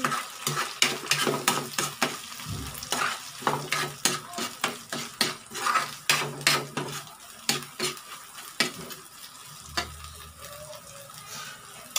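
Spatula scraping and knocking against a frying pan while egg and sardines are stirred, over the sizzle of the frying mixture. The strokes come quickly for most of the time and thin out and soften in the last few seconds.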